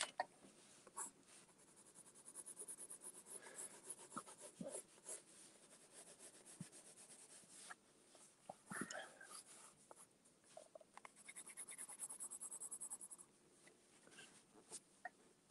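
Blue colored pencil shading on red paper: faint, quick back-and-forth scratching strokes, in two runs.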